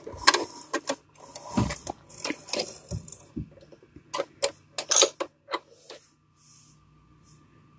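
Irregular clicks and taps of hands handling a sewing machine's thread and needle area while rethreading it. The clicking stops about six seconds in.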